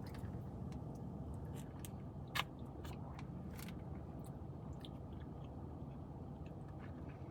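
A steady low hum with scattered small clicks and taps over it, one a little louder about two and a half seconds in.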